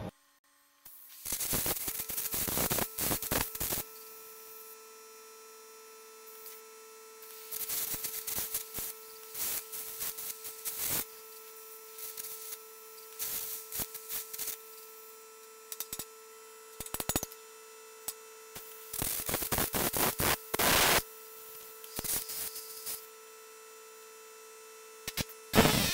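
Carbon arc air gouging through the weld holding a worn stub shaft in a steel roller end: crackling arc and a hissing air blast in stop-start bursts of one to three seconds. A steady electrical hum carries on between the bursts.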